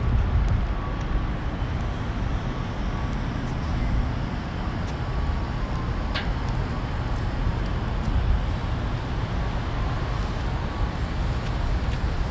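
Wind buffeting the microphone with a low rumble over a steady wash of distant city traffic, with a few faint ticks and one short sharp click about six seconds in.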